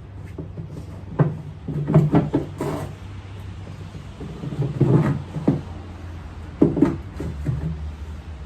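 Irregular knocks and bumps in three short clusters, like objects being handled or set down, over a low steady hum.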